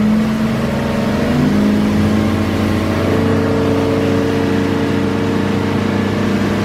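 Outboard motor of a small boat running under way at speed, a steady engine drone over a constant rushing hiss. The engine note shifts about a second and a half in, and a higher tone joins at about three seconds.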